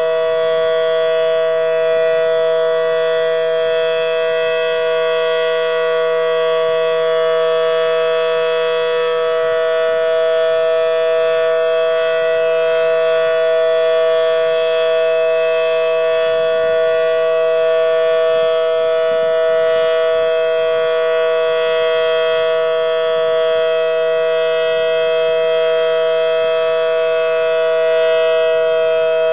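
Federal Signal Model 7T outdoor warning siren sounding a steady alert signal: a loud, constant two-note chord that holds its pitch without rising or falling.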